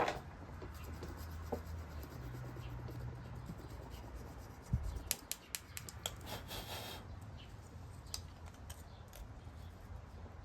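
Faint scraping of old gasket material off a metal intake manifold, with scattered light clicks and a longer scrape about six seconds in.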